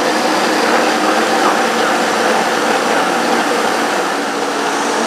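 Countertop blender motor running steadily with its lid off, chopping cooked chickpeas into a thick tahini liquid to make hummus.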